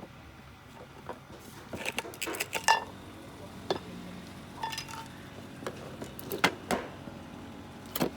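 Irregular metallic clicks, taps and clinks of tools and small metal parts being handled while a 50 W LED floodlight is taken apart. A few of them ring briefly.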